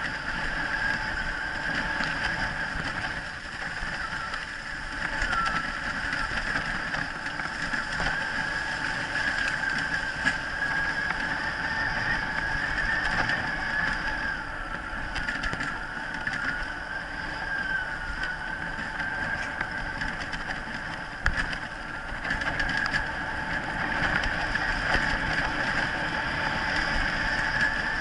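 Wheeled dryland rig pulled by a husky team, rolling and rattling over a rutted dirt trail, with a continuous high whine that wavers slightly in pitch.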